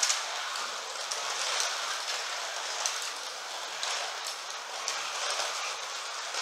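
1/32 Carrera Digital slot cars running laps on plastic track: a steady hiss of small electric motors and guide braids on the rails, with occasional sharp clicks.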